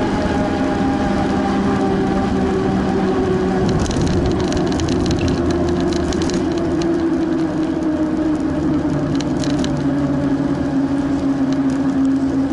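Bicycle riding noise picked up by a handlebar-mounted action camera: a steady rolling hum from the tyres on the paved path, with a few tones drifting slowly in pitch. Patches of crackle and rattle come about four to six seconds in and again near ten seconds.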